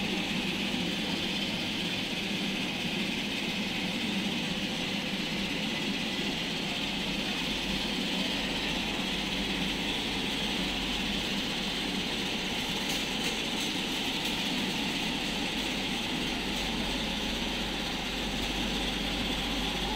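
Steady background hum of a large warehouse store, a constant rushing drone with no distinct events.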